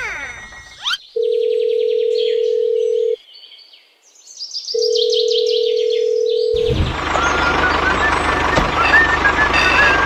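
Telephone ringback tone: two long, steady beeps of about two seconds each, a call ringing out. About seven seconds in, a tractor engine starts running steadily, with birds chirping over it.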